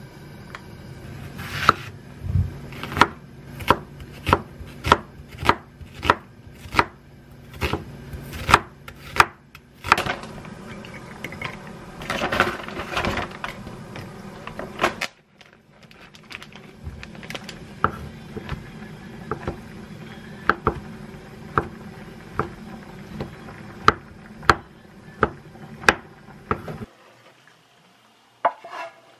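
A kitchen knife cutting through onion onto a wooden cutting board, in steady strokes of about three every two seconds. A second run of cuts follows a short break about halfway through.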